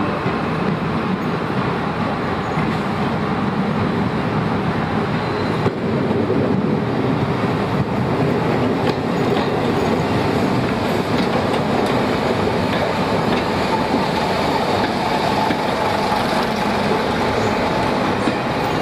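Heritage diesel multiple unit running past at close range: the steady rumble of its underfloor diesel engine, with wheels clicking over the rail joints.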